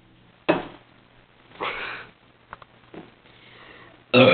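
A person's sharp, noisy breaths and sniffs as they gulp air to work up a burp. Near the end a loud, harsh burp begins.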